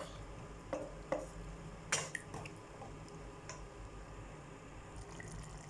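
A few light clinks and taps of kitchenware against a cooking pot, the loudest about two seconds in, over a faint steady low hum.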